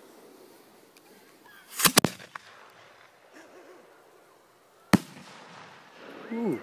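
Aerial fireworks shells going off: a close pair of sharp bangs about two seconds in and a single sharp bang about five seconds in.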